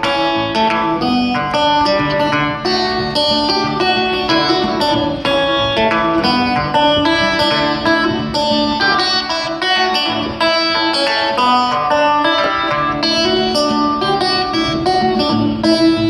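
Banjo picked in a quick, unbroken run of plucked notes, amplified through the stage PA speakers.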